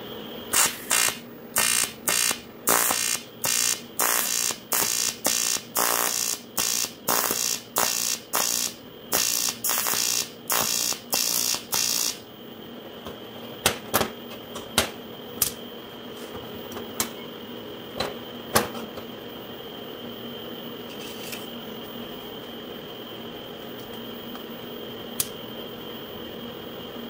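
TIG welding arc on aluminium, struck in short pulses about twice a second for some twelve seconds: the pedal is stitched on and off to lay the weld. Then the arc stops and a few sharp clicks follow.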